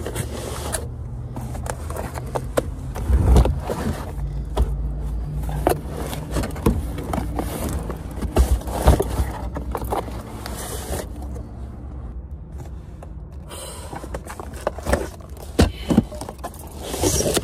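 Heavy boxes of tile knocking and scraping as they are loaded into a car, over a steady low hum.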